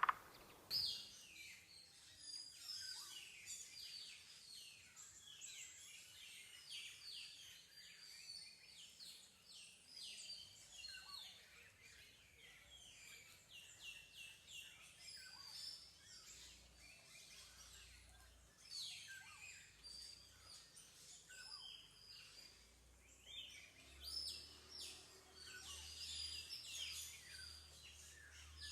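Small birds singing and chirping: a dense run of quick, high, downward-sweeping notes from several birds, faint throughout.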